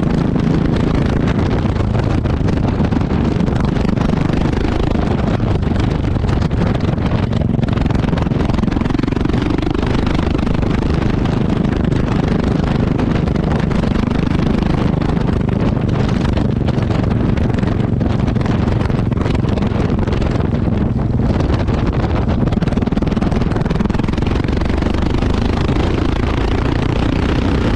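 Exhaust note of a Yamaha XT660X's single-cylinder four-stroke engine, heard close up at the exhaust, running steadily with only slight changes in engine speed.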